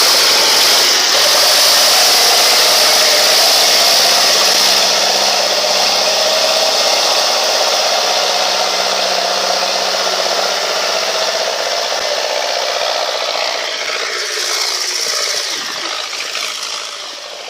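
Tractor engine running steadily under a loud, even hiss, the whole sound easing off over the last few seconds.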